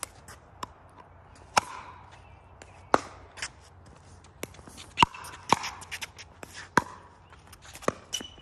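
Pickleball rally: sharp pops of the hard plastic ball struck by paddles, about every one to two seconds, with quieter ticks between them.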